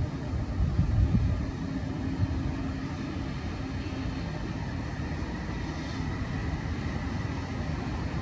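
Electric freight train hauled by a Lokomotion EU43 locomotive approaching and rolling slowly through the station: a steady low rumble of wheels on rail, heaviest about a second in, with a faint steady hum in the first half and a faint high whine in the second half.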